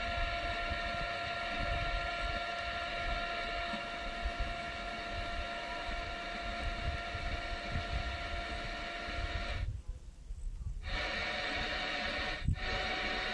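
Portable radio speaker putting out static hiss with a steady whine while its controls are being worked. The sound cuts out for about a second near the end and again briefly, and the whine comes back slightly higher in pitch.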